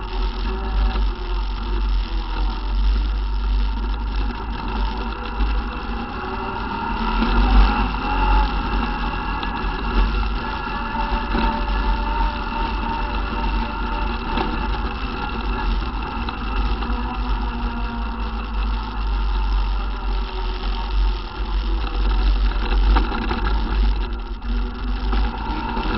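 ATV engine running steadily while the quad is ridden along a dirt track, with wind buffeting the microphone as a heavy low rumble. The engine picks up briefly about seven seconds in.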